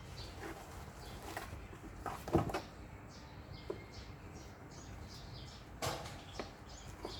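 Baby monkeys making short, high squeaky chirps, with a sharp knock about two and a half seconds in and another near the end.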